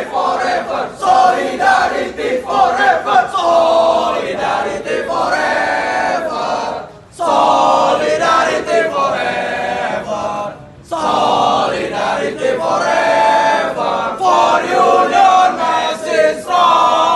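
A group of voices chanting loudly in unison, with two short breaks about seven and eleven seconds in.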